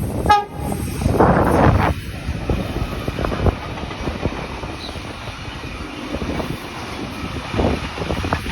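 Train sounding one brief horn toot, then the rumble and wheel clatter of the train running along the track.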